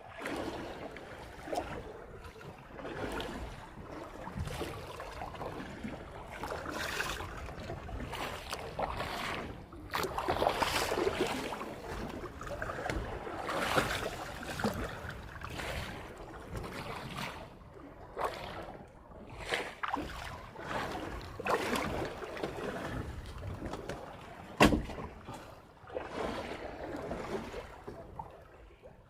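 Sounds aboard a small boat at sea: irregular swells of water washing against the hull and handling rustle, with one sharp knock about 25 seconds in.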